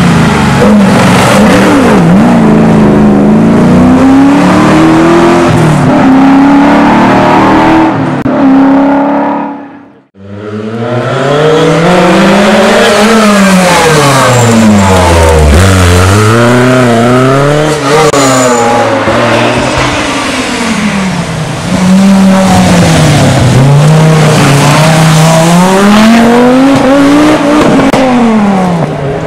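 Rally car engines revving hard as the cars take bends on a mountain road, the pitch climbing and dropping again and again through the gears and corners. Among them is a Lancia 037. About ten seconds in, the sound fades out sharply for a moment and comes back at a new car.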